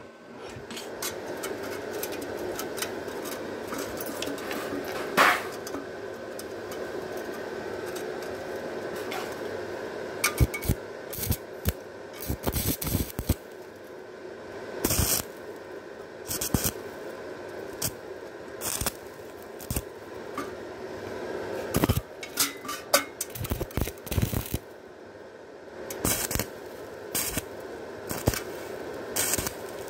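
Stick-welding arc on thin galvanized sheet steel, struck in many short crackling bursts as small tack welds are laid, over a steady background hum.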